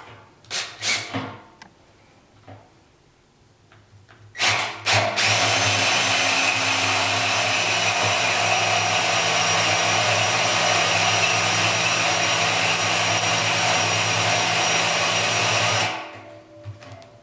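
Cordless drill cutting a hole through the stainless steel wall of a brew kettle for a tri-clamp fitting: a few short starts, then running steadily for about eleven seconds before stopping suddenly.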